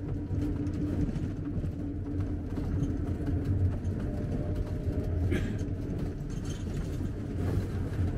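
Tour minibus driving along a road, heard from inside the cabin: a steady low rumble of engine and tyres.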